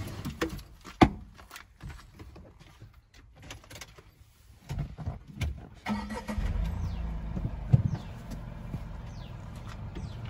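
A few scattered clicks and knocks, then about six seconds in a car engine starts and settles into a steady idle, started so that a 12 V accessory can be powered.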